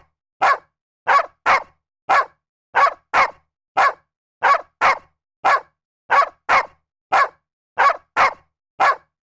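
A dog barking over and over, about sixteen short barks at an uneven pace of one to two a second, with clean silence between them.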